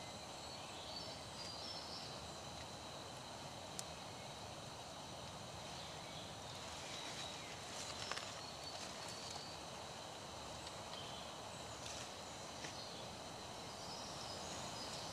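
Quiet woodland ambience at dusk: a steady faint hiss with scattered faint bird chirps and a few small sharp clicks.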